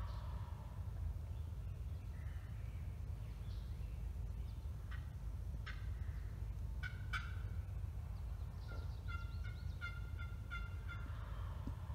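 Turkey calls: a few sharp single clucks, then a quick run of about six yelps at a steady pitch near the end, over a steady low rumble.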